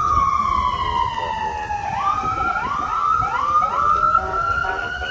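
Electronic siren of a responding fire department vehicle: a long wail falls slowly in pitch, then about halfway through it switches to a run of quick rising sweeps before climbing again, with a second, lower siren tone underneath.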